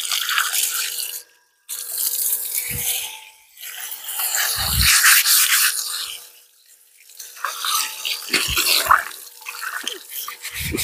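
Water running from a hose over a wet cement platform while it is scrubbed with a brush: scratchy scrubbing and splashing in stretches, broken twice by brief pauses, with a few dull knocks.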